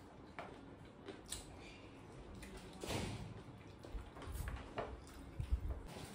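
Faint eating sounds at a table: scattered small clicks and soft rustles of fingers mixing rice and food on plates, with low thumps in the second half.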